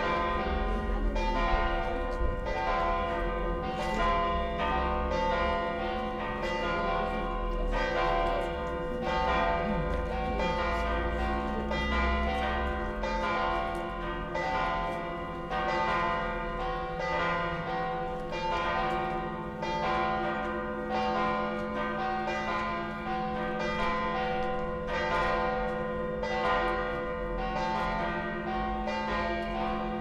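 Several church bells of Tallinn's Dome Church (St. Mary's Cathedral) ringing together in a continuous peal. Fresh strikes come every second or less, and the tones of different pitches overlap and hum on between them.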